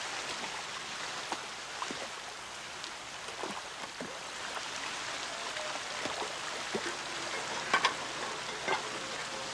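Water spraying and gushing from a burst, old rusted pipe into a pond: a steady hiss and rush with scattered splashes, a few sharper ones near the end.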